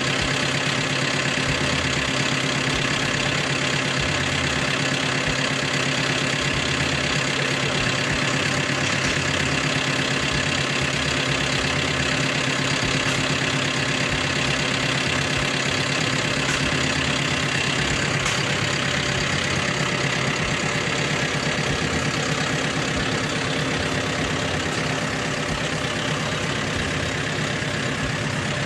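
John Deere tractor's diesel engine running steadily at low speed as the tractor pulls a water-wheel transplanter through the field, an even, unbroken engine hum.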